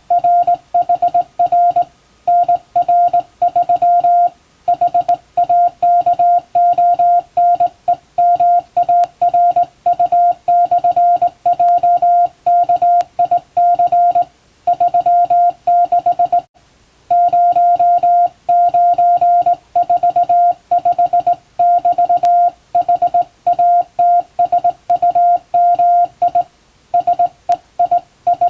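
Morse code sent by hand on a straight key, heard as a steady beep switched on and off in quick dots and dashes, with short pauses between groups and a slightly longer break about two-thirds of the way through.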